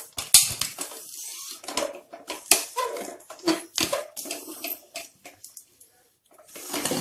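Aluminium pressure cooker lid being turned and lifted off the pot, with its rubber gasket and whistle removed: a run of irregular metal clinks, knocks and scrapes.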